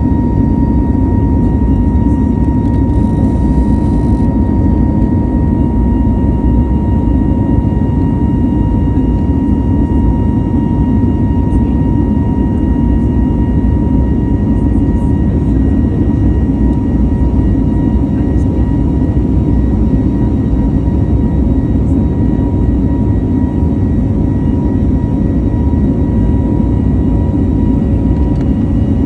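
Airbus A320neo jet engines running steadily: a loud, even rush with a constant whine over it.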